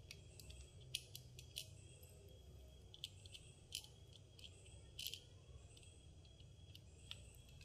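Faint, scattered small clicks and taps of hard plastic parts being handled as screws are fitted into a camera battery grip's battery tray, over low room hum.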